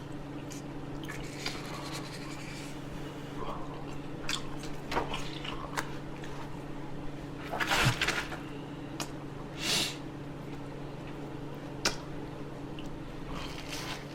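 Close-miked eating: chewing with wet mouth smacks and short clicks scattered through, the strongest about halfway and just under two seconds later, picked up by a microphone clipped to the shirt, over a steady low hum.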